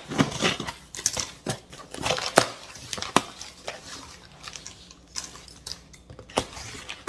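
A cardboard box being opened and its packaging handled: a string of irregular clicks, taps and scrapes with crinkling of tape and wrapping.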